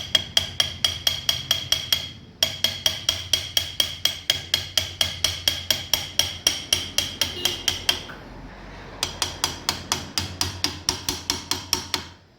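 Hammer striking metal in quick, even blows, about five a second, with a bright metallic ring, in three runs broken by short pauses about two and eight seconds in.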